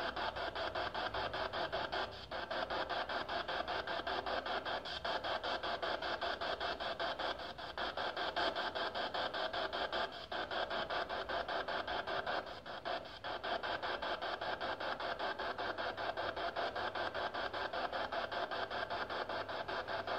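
PSB7 spirit box sweeping through radio frequencies: a steady hiss of static chopped into rapid, even pulses.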